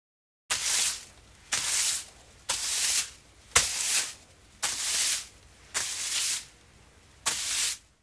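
Whisk broom sweeping in seven brisk, scratchy strokes about a second apart, with a sharp tap at the start of the fourth stroke.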